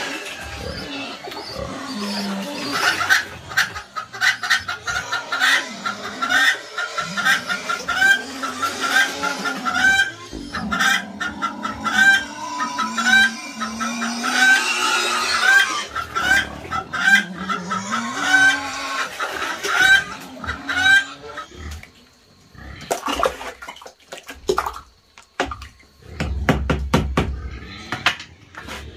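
Chickens clucking: a short rising call repeated about once a second, with other calls beneath it. Near the end the calls give way to a run of knocks and clatter.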